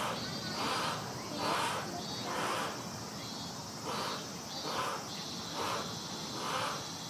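Insect calls repeating in a regular rhythm, a soft buzzy pulse about once a second, over steady background hiss.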